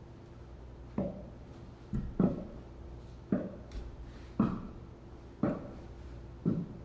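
Slow footsteps on wooden stairs, one heavy step about every second from about a second in, over a faint steady hum.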